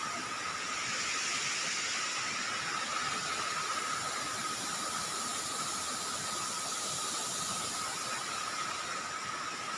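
Steady outdoor hiss with a thin, unchanging high tone running through it.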